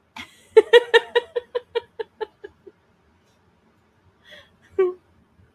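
A woman laughing: a run of about a dozen quick laughs that fade away over about two seconds.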